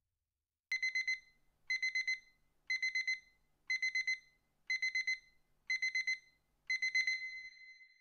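Digital alarm clock beeping: seven groups of quick, high electronic beeps, about one group a second, starting about a second in; the last group rings on briefly and fades.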